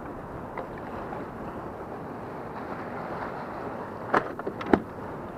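Steady wind buffeting the microphone over choppy water, with two sharp knocks a little over four seconds in.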